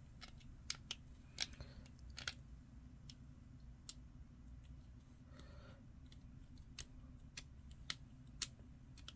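Hobby knife blade scraping along the edge of a small plastic model part, making about a dozen short, sharp, scratchy clicks at uneven intervals.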